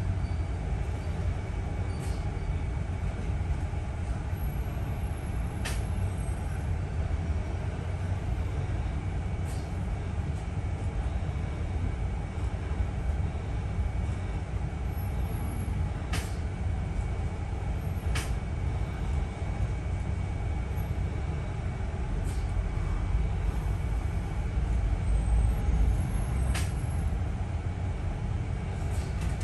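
Double-decker bus in motion, heard from inside on the upper deck: a steady low engine and road rumble with a faint constant high whine. Occasional sharp clicks or rattles from the bus body come about seven times, a few seconds apart.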